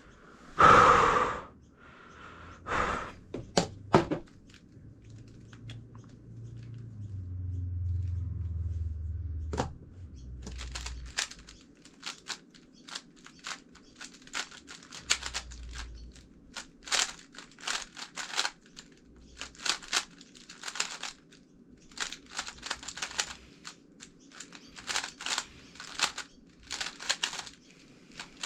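GAN356 X magnetic 3x3 speed cube being turned fast during a solve: rapid plastic clicking of layer turns in quick flurries, starting about ten seconds in. Before that come a few separate knocks and a low rumble of handling.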